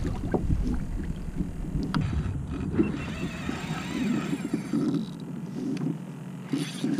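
Wind rumbling on the microphone and water lapping around a kayak, with a few light knocks from handling gear early on; the low wind rumble drops away about halfway through.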